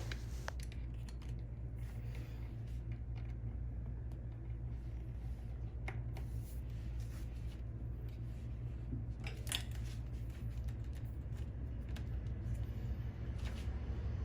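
Steady low hum with a few faint, scattered clicks and taps.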